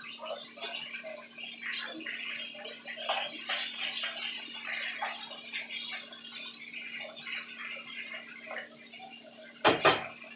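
Chicken thighs sizzling skin-down in hot oil in a frying pan: a steady crackling sizzle with many small pops. Near the end there are two sharp knocks.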